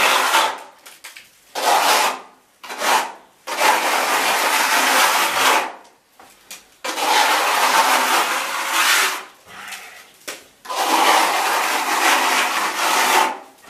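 Steel plastering trowel scraping the second skim coat of lime-based render up a wall, in a series of long strokes, the longest two to three seconds, with short pauses between them as the trowel is lifted and set again.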